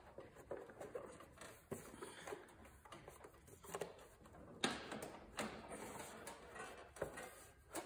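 Scattered clicks and knocks of hands working at a riding mower's engine cover, trying to pull it loose, with one sharper knock about halfway through.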